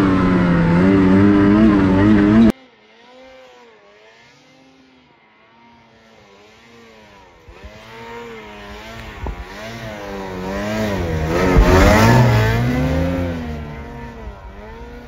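Snowmobile engine close up, revving up and down, cutting off abruptly about two and a half seconds in. Then a snowmobile is heard faintly in the distance, its engine pitch rising and falling as it approaches through powder, loudest as it passes close about twelve seconds in, then fading.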